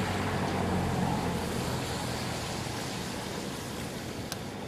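Road traffic noise: a vehicle's engine hum fades away over the first couple of seconds, over a steady wash of rushing river water.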